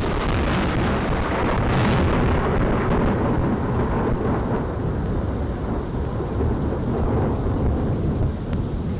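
Thunder rumbling in a thunderstorm, coming in loud all at once and keeping on without a break, with rain falling.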